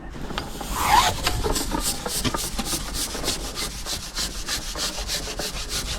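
Carbon fishing pole sliding over a pole roller: a rhythmic rubbing rattle, about five strokes a second, starting about a second in.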